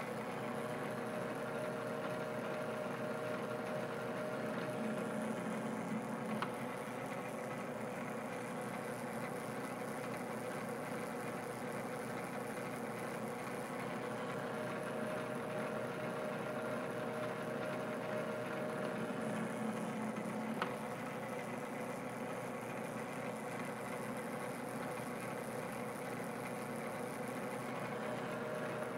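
Small metal lathe running steadily with a steady hum while a thread-cutting pass is taken. Two sharp clicks about fourteen seconds apart.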